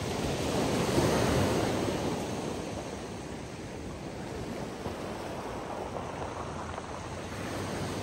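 Small sea waves breaking and washing up a shingle beach, swelling about a second in and then settling into a steady wash.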